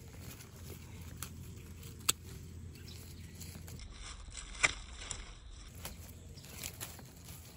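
Faint rustling of watermelon leaves and plastic netting as a hand moves the vine, over a low outdoor rumble. Two sharp clicks cut through, one about two seconds in and a louder one near the middle.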